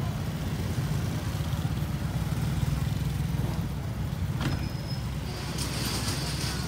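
Motorcycle and scooter traffic on a street: a steady low engine rumble, with a single sharp click about four and a half seconds in and a brighter hiss near the end.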